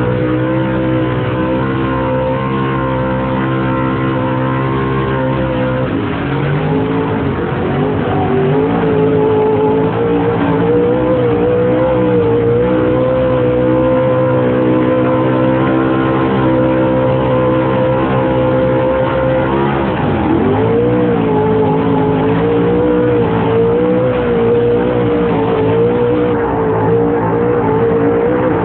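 Swamp buggy racing engine running hard at high revs. Its pitch sags briefly about six seconds in, then dips sharply and climbs back about twenty seconds in, as the throttle eases and opens again.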